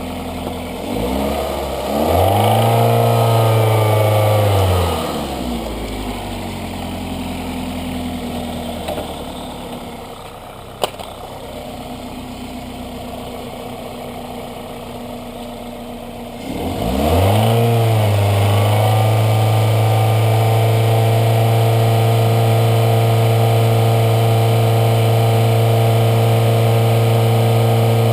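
2003 Toyota Corolla's 1.8-litre four-cylinder engine running while Seafoam is fed into its throttle body: it is revved up and held about two seconds in, drops back near five seconds, runs lower and quieter through the middle with one sharp click, then is revved up again and held at a steady raised speed.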